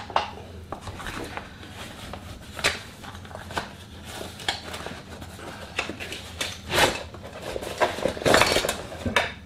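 Handling sounds from a metal water bottle and its nesting metal cup being worked out of a fabric pouch: cloth rustling with scattered clinks and knocks of metal, the loudest about seven and eight and a half seconds in.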